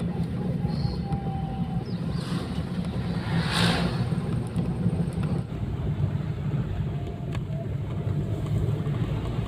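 Car driving along a road, heard from inside the cabin: a steady low rumble of engine and tyres, with a brief rushing swell about three and a half seconds in.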